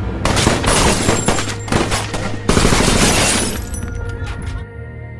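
A rapid volley of rifle gunfire from several guns, dense for about three seconds, then a few single shots, over a steady low music drone.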